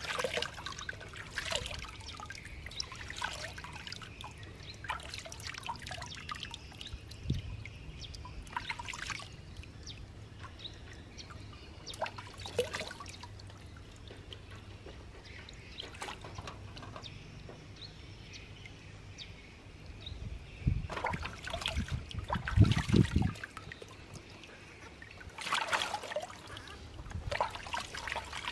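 Water splashing and trickling as hands scoop paddling-pool water over a small wet monkey and it drips and runs back into the pool, in repeated short splashes. A louder burst of splashing with low thumps comes about three quarters of the way through.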